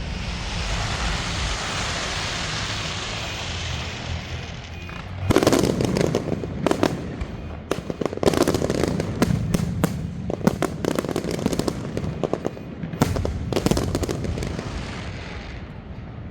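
Fireworks going off: a long crackling hiss for about the first five seconds, then a dense run of sharp cracking reports from about five seconds in, easing off briefly and starting again near the end.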